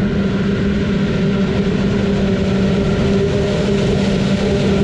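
Claas Jaguar 970 forage harvester, its V12 diesel working under load as it chops maize, with the John Deere tractor hauling the trailer alongside: a steady, even engine drone with a strong constant hum.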